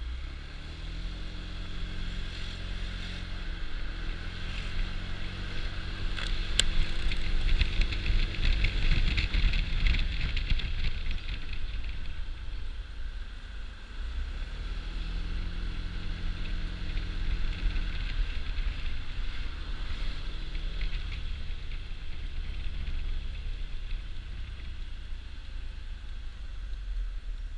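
Honda Dio scooter's single-cylinder engine running under way, its pitch rising and falling several times as the throttle opens and closes, with wind rushing over the microphone, loudest from about six to eleven seconds in. A single sharp click about six and a half seconds in.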